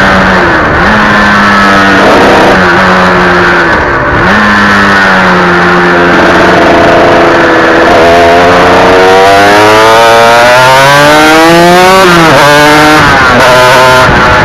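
Yamaha TZR 250 RSP two-stroke V-twin race engine at racing speed, recorded on board with wind rush. The engine note dips sharply twice in the first few seconds, sags through a corner, then climbs steadily under acceleration before dropping abruptly at a gearshift near the end and climbing again.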